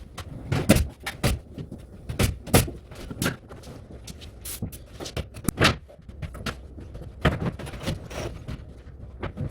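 Irregular sharp knocks and clacks of carpentry work, a dozen or more impacts at uneven intervals with a short gap before the last few.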